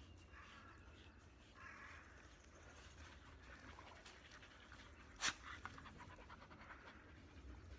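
A dog panting softly in repeated breaths, with a single sharp click about five seconds in.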